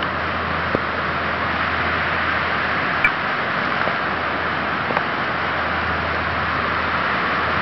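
Steady rushing background noise with a low hum underneath and a few faint ticks.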